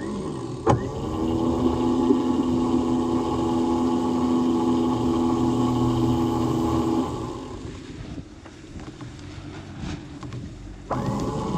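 Electric winch hauling in the spinnaker halyard, its motor starting after a couple of sharp clicks about a second in and running steadily for about six seconds. It stops, then starts again shortly before the end.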